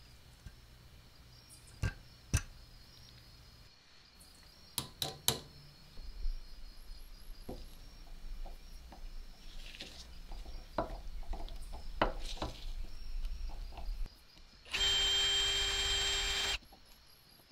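Sharp metal clicks and scrapes of a pointed tool picking at a cast iron coin bank, then a drill bit grinding into the cast iron. Near the end the drill motor runs steadily at full speed with a whine for about two seconds, then cuts off suddenly.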